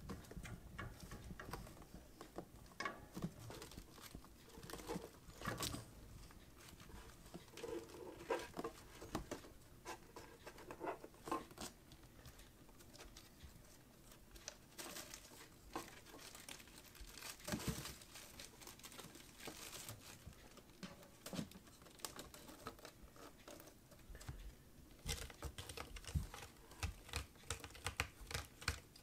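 Kittens at play: soft, irregular pattering and scuffling of small paws, with scratching and rustling, and a longer stretch of rustling about midway.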